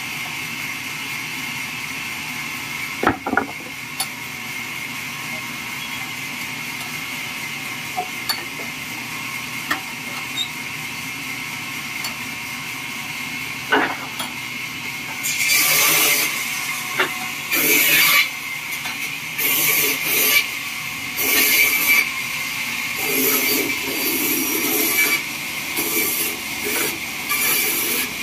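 Homemade band sawmill running with a steady hum and a high whine. A few sharp knocks come in the first half as a log is levered and clamped onto the mill's steel carriage. From about halfway there are repeated rasping, rumbling bursts as the loaded carriage is pushed along its rails.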